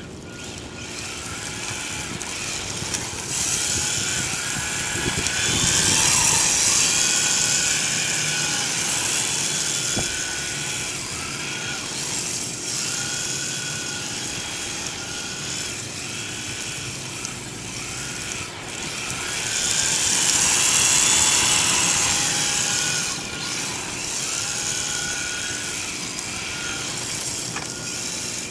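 Electric RC drift car's motor whining, rising and falling in pitch with the throttle, with tyres hissing on asphalt as it slides. Louder twice, about six seconds in and again about twenty seconds in.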